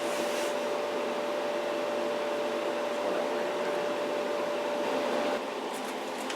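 Steady machine hum with a single held mid-pitched tone, dropping a little in level about five seconds in. There is a brief faint hiss near the start and again near the end.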